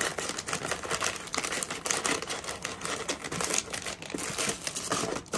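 Plastic packaging bags crinkling and rustling in a dense run of irregular crackles as they are handled and pressed into a cardboard shipping box.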